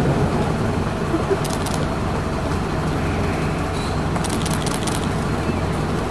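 Military truck engine idling steadily, with two short runs of light clicking and rattling, about one and a half seconds in and again around four to five seconds in.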